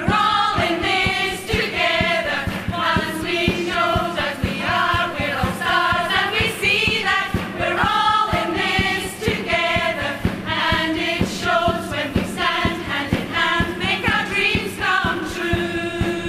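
A women's choir singing an upbeat song together over a steady beat.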